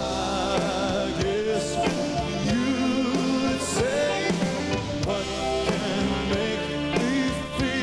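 Male lead singer with a live rock-and-roll band of electric guitar, bass, keyboards and drums, singing held, gliding notes over the steady beat.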